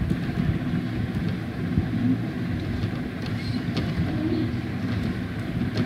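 Steady low background rumble with a few faint, short clicks, in keeping with keys being pressed on a computer keyboard as a word is typed.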